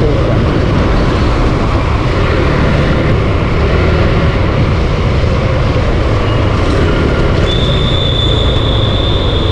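Wind rush and running noise from a Suzuki Gixxer 155 motorcycle on the move, heavy and steady, with a thin high whine joining in about seven and a half seconds in.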